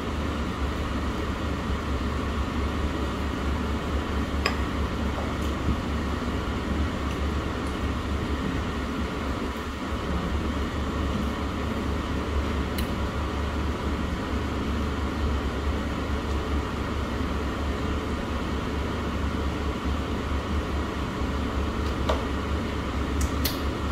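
A steady low mechanical hum, with a few faint clicks here and there.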